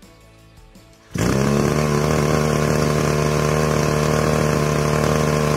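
Two-stroke brush cutter engine coming in suddenly about a second in and then idling steadily, running well on a newly fitted piston and cylinder.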